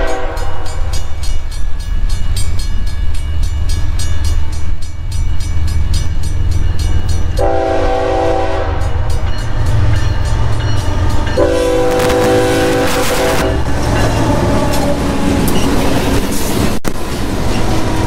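Freight locomotive's air horn sounding a chord of several notes in separate blasts: one ending just after the start, then two more, the second longer, over a steady low rumble. A regular crackle runs through the recording in the first half.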